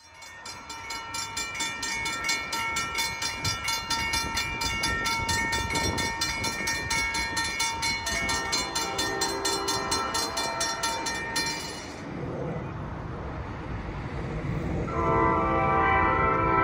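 A bell clanging steadily, about four strokes a second, over a low rumble of the train, stopping about twelve seconds in. Near the end the NJ Transit train's horn sounds, a loud chord of several tones.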